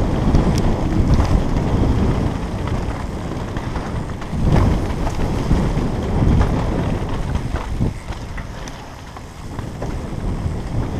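Wind buffeting a helmet-mounted camera's microphone as a mountain bike runs fast down a dirt trail strewn with dry leaves, with tyre rumble and occasional knocks and rattles from the bike. It eases off briefly near the end.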